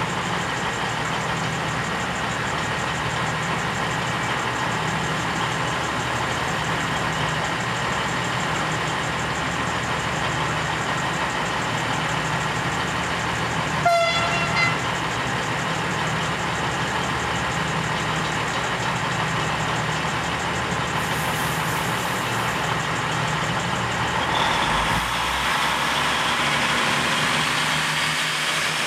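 V/Line VLocity diesel railcar idling steadily at the platform. Its horn gives a short toot about halfway through. Near the end the engine revs up and the pitch rises as the train starts to pull away.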